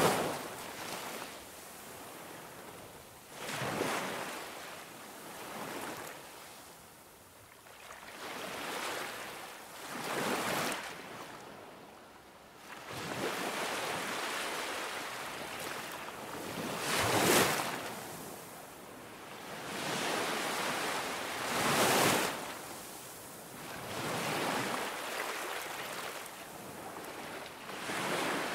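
Ocean waves washing in, a hiss that swells and recedes every few seconds, two swells louder than the rest.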